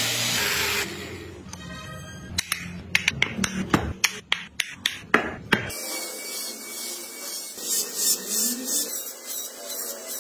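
Wood lathe spinning a wooden disc while a hand chisel cuts it, stopping about a second in. It is followed by a run of sharp clicks and knocks, then by a small handheld rotary tool grinding into wood.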